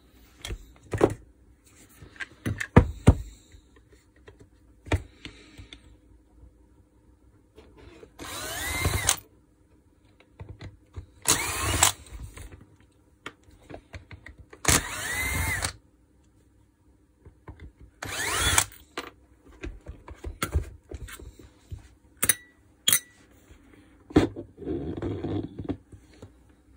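Cordless Makita drill-driver whirring in four short bursts, each spinning up with a rising whine, as it backs screws out of an angle grinder's gear housing, with clicks and knocks of tools being handled in between. Near the end comes a scraping rattle as the armature is drawn out of the housing.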